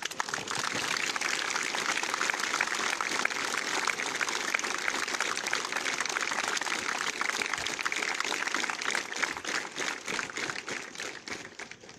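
A large crowd of cadets applauding: dense, steady clapping that thins out near the end.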